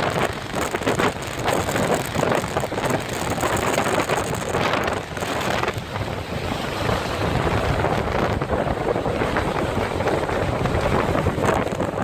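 Strong gusting blizzard wind buffeting the microphone, a dense roaring rush that surges and eases with the gusts.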